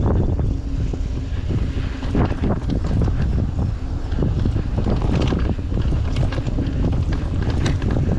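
Wind buffeting the microphone of a GoPro on a mountain bike riding fast downhill, with a steady low rumble of tyres on a dirt trail and frequent sharp clatters and knocks as the bike rattles over rocks and bumps.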